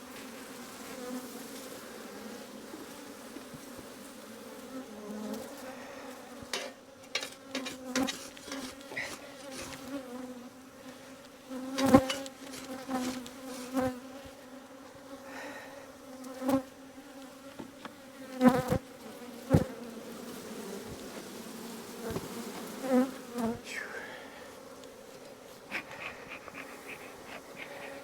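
Honeybees buzzing steadily around open hives, a low even hum, with a series of sharp knocks and clunks as wooden hive boxes are lifted and set down, the loudest about twelve seconds in and again several seconds later.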